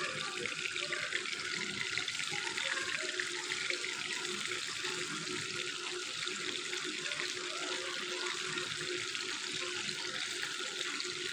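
Raw marinated chicken pieces sizzling and crackling steadily in hot oil in a frying pan, with more pieces laid into the oil by hand.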